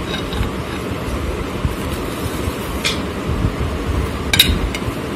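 Knife clinking against a ceramic plate as a chocolate cake is cut and a slice lifted out: two sharp clinks, about three seconds in and again about four and a half seconds in, over a steady low rumble.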